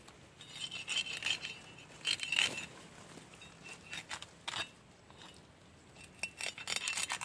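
Coconut palm fronds crackling and rustling in short clusters as the leaf bases are bent down and pried open by hand.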